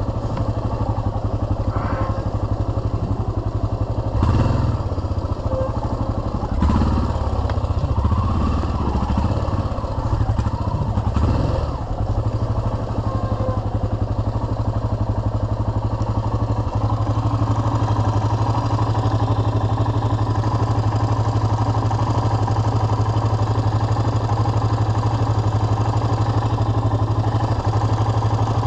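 Yamaha XT 600's single-cylinder four-stroke engine running as the bike is ridden over a rough forest trail. There are a few louder surges with clatter in the first half, then a steadier run through the second half.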